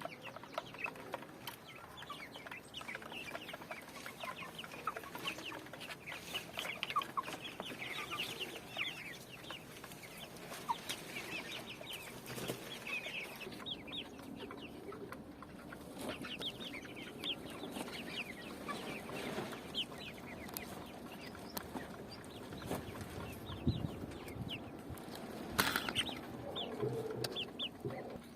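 A flock of chickens clucking and chirping, many short calls overlapping throughout, with a sharp knock about two seconds before the end.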